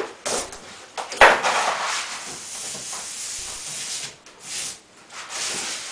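A large sheet of printed wrap vinyl rustling and crackling as it is handled and spread over a plywood cornhole board, with a sharp snap of the sheet about a second in.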